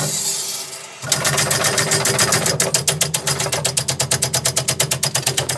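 Vaillant boiler's pressure relief valve discharging: a hiss at first, then about a second in a rapid, even rattling chatter as the valve vibrates. It is opening while the gauge reads under 1 bar, which the plumber suspects means a faulty gauge and a true system pressure over 3 bar.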